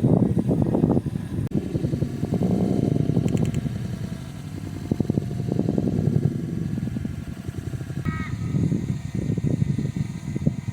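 A bird giving harsh, drawn-out cawing calls, several in a row, with a short higher note about eight seconds in.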